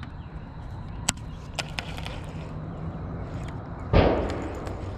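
A shirt sleeve brushing against the camera microphone about four seconds in, a loud scuffing thump that fades quickly. Before it, a few sharp clicks a little after one second over a steady low hum.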